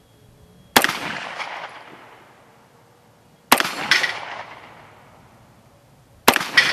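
Beretta 92FS 9mm pistol firing at steel plate targets: a shot about every three seconds, most followed by a quick second shot. Each shot trails off in a short echo.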